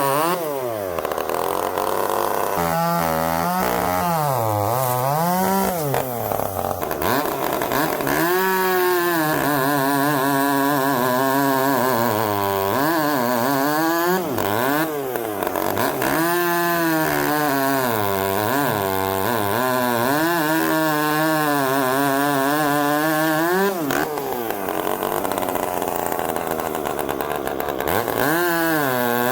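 Poulan P3416 34cc two-stroke chainsaw, fitted with a modified exhaust pipe, running loudly. It is revved up and down over and over, dropping back to a low idle a couple of times before climbing again.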